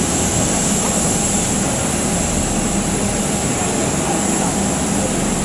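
Steady, loud ramp noise beside a parked American Airlines Boeing 737-800 jet airliner: an even rush with a thin high whine over it that does not change.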